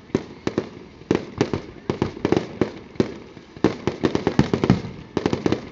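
Fireworks display: a rapid, continuous string of aerial shell bursts and reports, about four or five bangs a second, loudest about two thirds of the way through.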